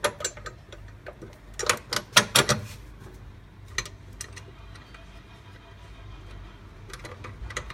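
Metal clinks and clicks of steel bolts, washers and a bracket being handled and fitted by hand, in short clusters with a few single clicks, over a low steady hum.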